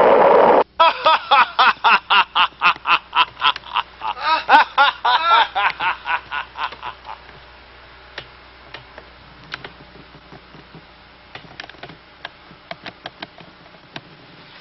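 A loud hissing noise cuts off abruptly just under a second in. Then a long laugh follows in rhythmic 'ha-ha-ha' pulses, about three a second, swelling near the middle and fading out after about six seconds. Faint scattered clicks come in the second half.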